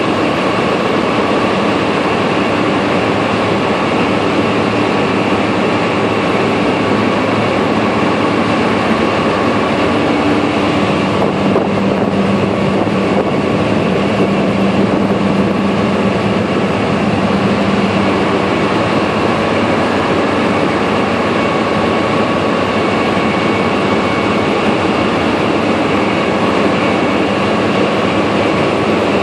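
ZJ50 land drilling rig machinery running, a loud steady mechanical noise with a thin steady whine; a lower hum comes up more strongly in the middle and then eases.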